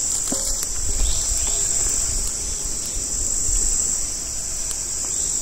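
Steady, high-pitched chorus of insects trilling without a break, over a low rumble.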